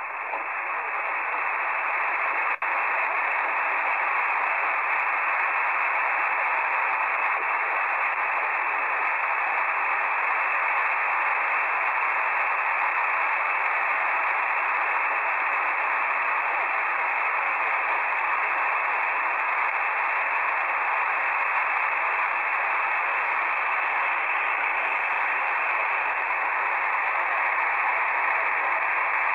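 Shortwave receiver static from a software-defined radio in lower-sideband mode near 7.05 MHz, the 40-metre amateur band: a steady hiss narrowed to the voice-width sideband filter, with no station audible. There is one brief dropout about two and a half seconds in.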